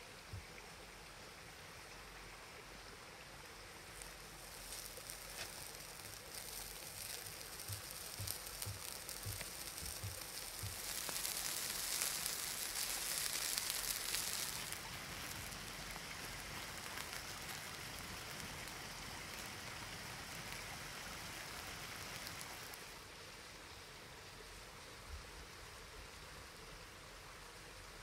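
Food sizzling in a hot pan over a campfire, a steady crackling hiss that swells louder for a few seconds near the middle, with a few small pops and ticks before that.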